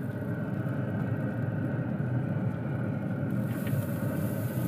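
Steady low rumble of a running Traeger pellet grill with its lid open, heated to 375. A faint high hiss joins about three seconds in.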